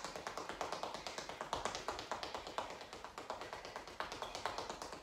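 Sneakers tapping rapidly on a tiled floor in a fast-feet tapping drill: a quick, even run of light footfalls, many steps a second.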